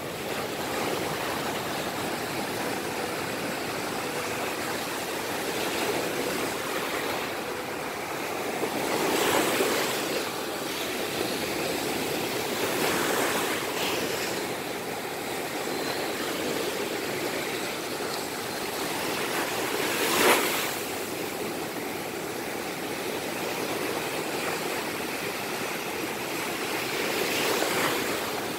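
Waves breaking on a sandy beach: a steady wash of surf that swells several times as waves come in, with one sharper burst about two-thirds of the way through.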